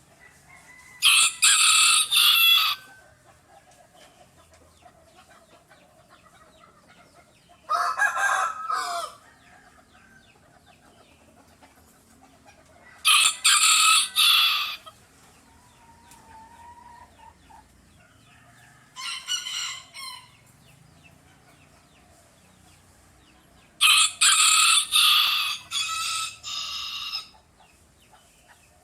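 Roosters crowing: five crows several seconds apart, each a second or two long. The second is lower-pitched, and the fourth, about nineteen seconds in, is fainter. The last, starting about twenty-four seconds in, is the longest.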